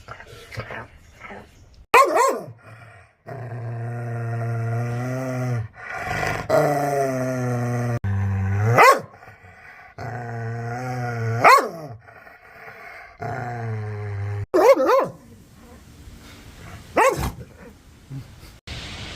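Aggressive dog growling in long low growls, broken by about five sharp, loud barks.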